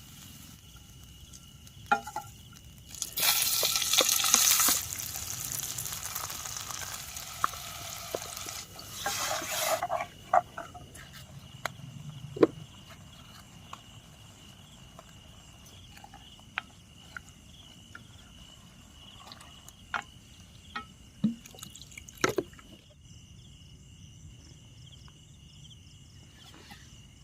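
Prawns frying in a hot pan, sizzling loudly for a few seconds and again briefly near the ten-second mark. The sizzle then dies down to a quieter background with a steady high insect chirr and a few light clicks of utensils and pan.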